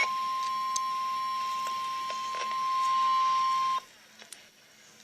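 Emergency Alert System alert tone for a tornado warning: one steady, high-pitched beep that cuts off suddenly nearly four seconds in, followed by a few faint clicks.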